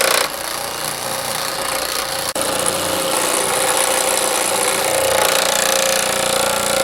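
Baileigh PH-19 power hammer running with a beading die, its ram hammering rapidly and steadily on a sheet-metal panel to roll a bead.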